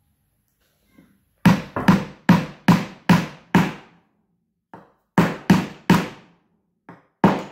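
Mallet blows on a wooden block, driving a glued 3/4-inch dowel home into its hole: a quick run of about seven strikes, a short pause, then two more short groups of strikes.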